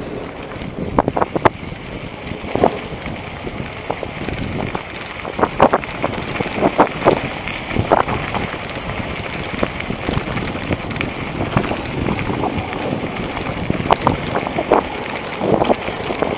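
Caloi XRT mountain bike riding over a rough dirt road: tyres on loose gravel with irregular knocks and rattles as the bike bumps over ruts, under wind noise on the microphone.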